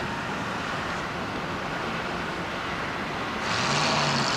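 Steady outdoor road-traffic noise, swelling louder for about a second near the end.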